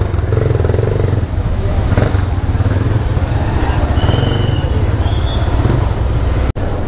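Motorcycle engine running steadily at low speed, a continuous low rumble, with a few faint short high-pitched tones over it and a brief cut-out in the sound near the end.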